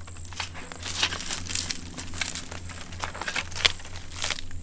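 Climbing tree stand being inched up a pine trunk: irregular scraping and crackling of the stand's metal frame and gripping teeth against the bark, over a steady low hum.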